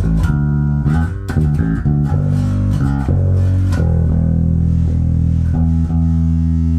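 Sterling StingRay Ray4 electric bass, finger-plucked through an old Crate practice amp that the player says sounds like garbage. A run of plucked low notes, then two long held notes in the second half.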